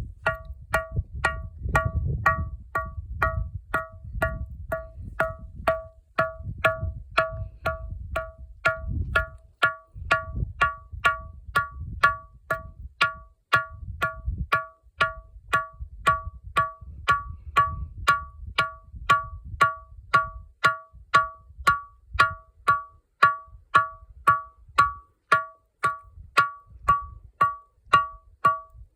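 Volcanic sound rock (ringing rock) struck steadily about twice a second, each strike ringing out with a high, bell-like tone. A low rumble runs underneath, heaviest in the first half.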